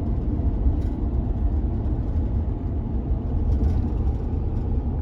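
A car driving at a steady speed, with a constant low road and engine rumble heard from inside the cabin.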